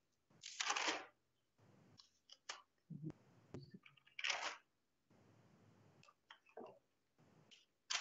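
Faint handling noise: a few short rustles, each about half a second, and scattered light clicks, with quiet between.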